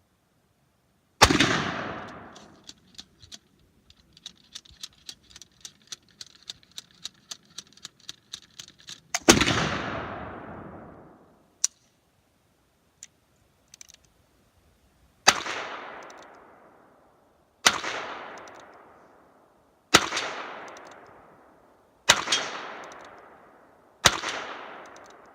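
Seven gunshots, each followed by a trailing echo. The first comes about a second in and the second about eight seconds later, with a run of light clicks between them. The last five follow roughly two seconds apart.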